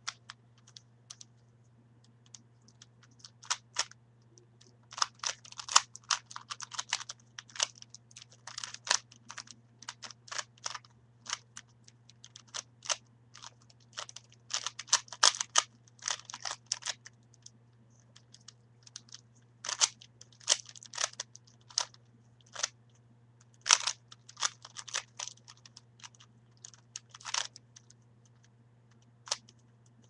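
Plastic 3x3 Rubik's cube being turned by hand, its layers clicking and clacking in quick runs of turns with short pauses between.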